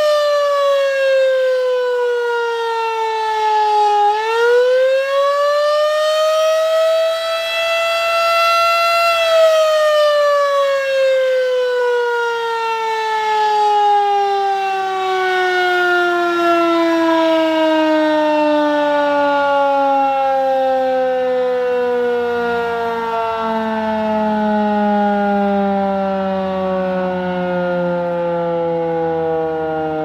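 Model 3 outdoor warning siren sounding the attack signal: a loud wailing tone that sinks in pitch, climbs back up once, then from about nine seconds in falls slowly and steadily as the siren winds down.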